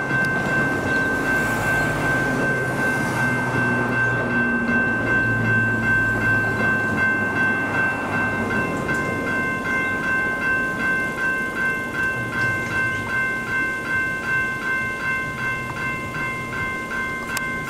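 General Signals Type 2 railway level-crossing bell ringing to warn of an approaching train. Its ringing is almost continuous at first, then comes as clearly separate rings from about halfway on, with a low road-traffic rumble beneath early on.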